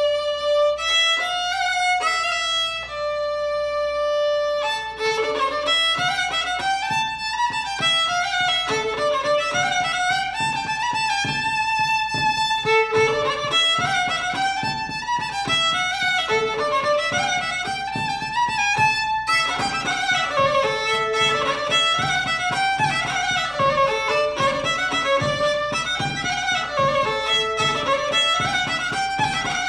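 Solo fiddle playing a traditional Limousin tune. It opens with a few long held notes and, about five seconds in, moves into a quicker running melody.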